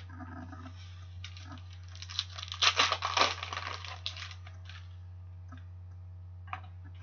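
Trading card pack wrapper being crinkled and torn open with the cards handled. There is a burst of crackly rustling from about two seconds in to about four and a half seconds, over a steady low electrical hum.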